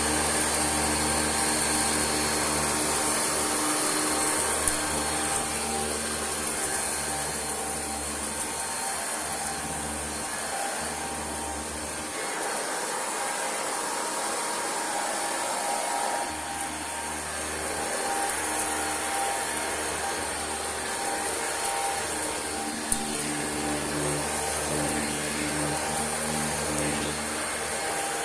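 Singer System 90 vacuum cleaner running on high speed over a rug, a steady motor hum with a whine. Its low hum drops away for about four seconds midway, and there are two sharp clicks.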